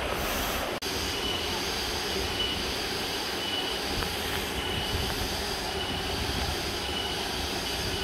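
Steady rushing of a small waterfall and the shallow stream below it, which cuts out for an instant just under a second in.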